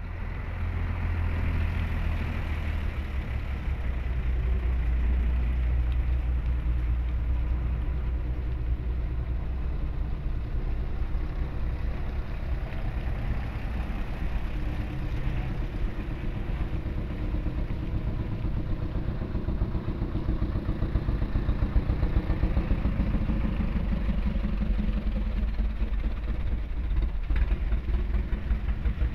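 Diesel engines of heavy trucks in a slow-moving queue, running as they crawl past close by with a steady low rumble. It gets louder past the middle as a truck nears.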